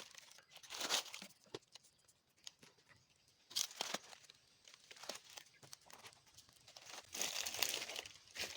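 Irregular rustling and crinkling with scattered clicks, as something dry is handled or moved close by, in louder spells about a second in, around the middle and near the end.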